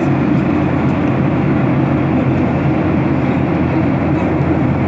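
Jet airliner cabin noise in flight, heard inside the cabin: the turbofan engines and the airflow make a steady, unbroken roar with a low hum under it.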